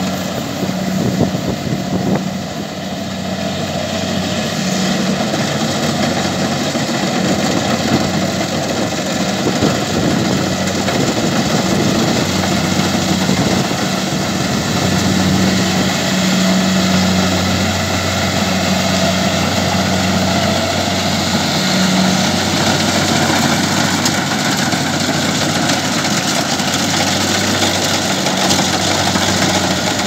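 Kubota combine harvester running steadily while cutting rice: a continuous diesel engine drone under the dense mechanical noise of its cutting and threshing gear.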